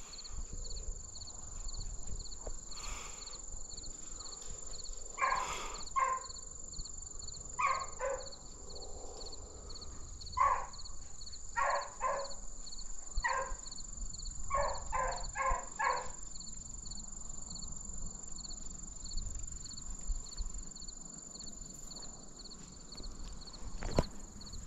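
An animal's short pitched calls, repeated in clusters of one to four over about ten seconds, with a steady high-pitched whine throughout.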